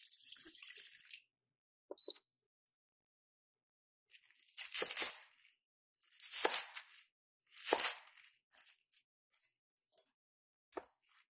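Water pouring into a stainless steel cooker pot for about the first second. Then a knife cuts through a stack of napa cabbage leaves on a wooden cutting board with three crunching cuts about a second and a half apart, followed by light rustling and a sharp tap near the end.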